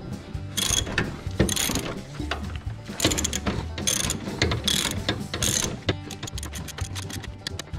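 Socket ratchet clicking as a 15 mm engine hold-down bolt is loosened: a series of clicking strokes about a second apart, then quicker, closer clicks near the end.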